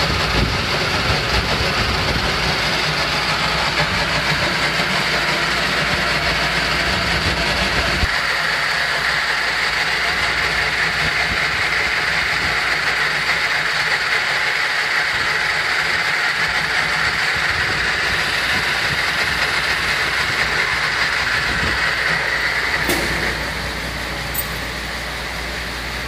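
Metal lathe running, boring out the weld built up inside the bore of a steel bar cutter part: a steady machine rumble with a cutting hiss. About 23 seconds in it drops to a quieter run, with a couple of clicks.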